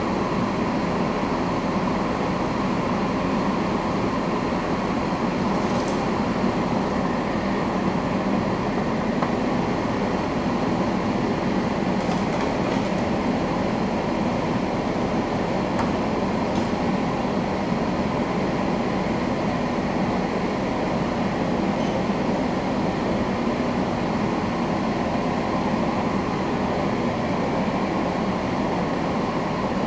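Steady rushing airflow from a handheld heat gun blowing hot air onto a circuit board to melt the solder on through-hole parts, mixed with the box fan of a fume extractor running.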